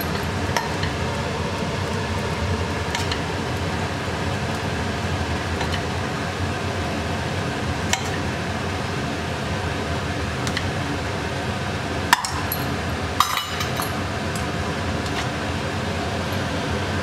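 Steel ladle clinking against the cooking pan and a ceramic bowl as thick kheer is scooped and served, a few scattered clinks with the sharpest two near the end. A steady background hum runs underneath.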